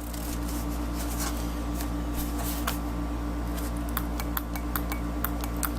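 Toggle switches on a homemade switch box being flipped, a run of sharp clicks that come faster near the end, over a steady low electrical hum.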